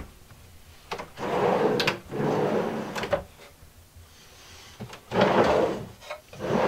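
Wooden slide-out pantry shelves on drawer slides being pulled out and pushed back in, a rolling rush three times, with sharp clicks as they reach the ends of their travel.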